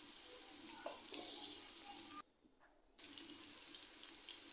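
Cubed potatoes sizzling in hot oil in a kadai: a steady hiss with small crackles, broken by a gap of near silence a little over two seconds in that lasts under a second.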